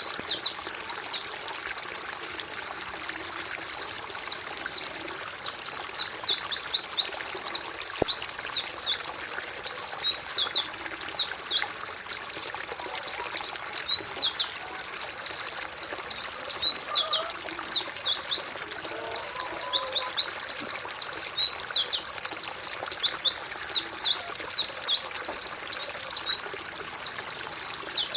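White-eyes (pleci) chirping continuously in a dense flock chorus, with many quick, thin, high notes that sweep downward and overlap. This is a tutor recording used to stimulate caged white-eyes to sing.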